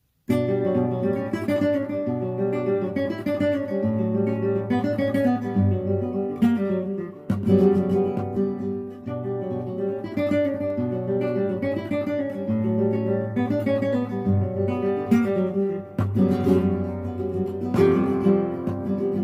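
Background music led by acoustic guitar, plucked and strummed in a steady rhythm, starting just after a moment of silence.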